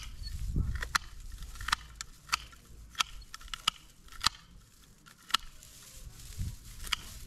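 Hand pruning shears snipping plant stems, a sharp click about once a second at an uneven pace, with rustling of foliage during the first second or so.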